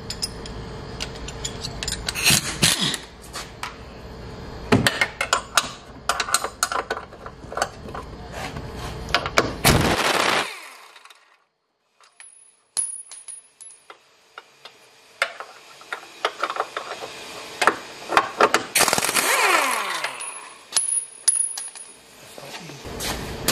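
Cordless impact wrench hammering in bursts on a suspension bolt, with a falling whine as its motor winds down after the later burst. Metal clinks and knocks of sockets and tools come between the bursts.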